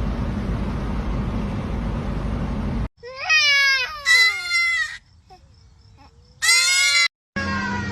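A steady noisy background that cuts off about three seconds in. It is followed by three high wailing cries, each falling in pitch, the last one near the end.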